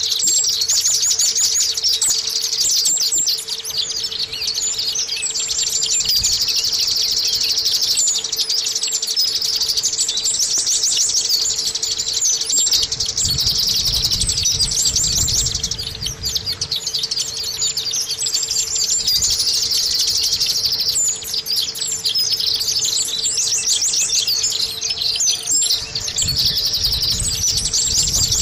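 White-eye (pleci) singing a rapid, high-pitched twittering song that runs almost without pause, with only brief breaks, the kind of chattering song used as a 'pancingan' to prompt other white-eyes into song.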